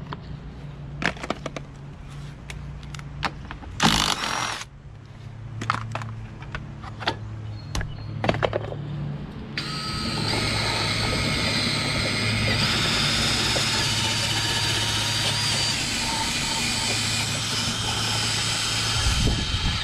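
A cordless drill spins a wire brush against a rusty steel mower wheel axle, scouring the rust off. The drill runs steadily for about ten seconds starting just before halfway, and its whine shifts pitch once. Before it starts there are scattered clicks and knocks as the plastic wheel is handled and pulled off the shaft.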